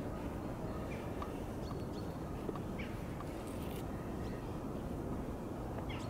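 Outdoor ambience over a frozen canal: a steady low rumble with scattered short, high chirps and pings throughout.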